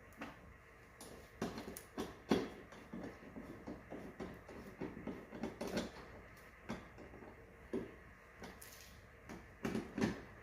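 Irregular light clicks, knocks and rustling from hands-on work, a few sharp taps a second at uneven spacing.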